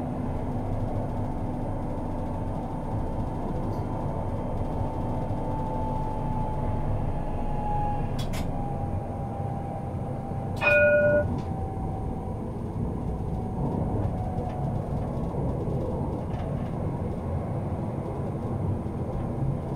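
Alstom Citadis Compact tram running along its track, heard from on board: a steady low rumble with a thin motor whine that slowly falls in pitch over the first half. About halfway through, a short, loud, ringing warning tone sounds once for about half a second.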